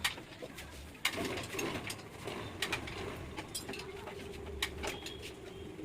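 Light metallic clicks and taps of two-stroke motorcycle engine parts being handled during bench assembly, with a sharper click about a second in. A faint steady hum runs underneath in the second half.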